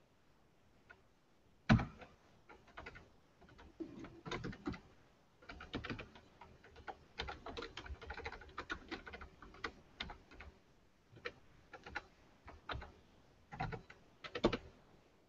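Typing on a computer keyboard: irregular runs of keystrokes with short pauses, and two louder single clicks, one about two seconds in and one near the end.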